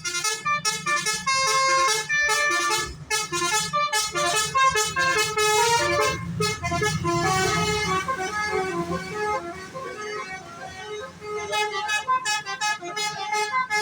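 Bus telolet musical air horns of the basuri type playing a fast melody of shifting notes, continuously. About halfway through, a bus's diesel engine rumbles loudly underneath as it passes.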